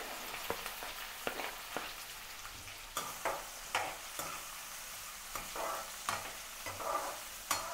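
Chopped onion and green chillies sizzling as they fry in hot oil in a wok, with a slotted metal ladle scraping and knocking against the pan as they are stirred.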